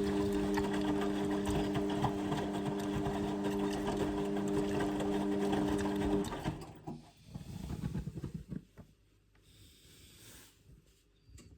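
Indesit washing machine on its rinse cycle: a steady motor hum that cuts off about six seconds in. Softer irregular water sloshing and gurgling follow, then it goes quiet.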